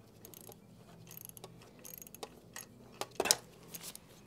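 Scattered light clicks and metallic clinks of hand tools working on a motorcycle's radiator mounting, with a louder cluster of clinks a little after three seconds in.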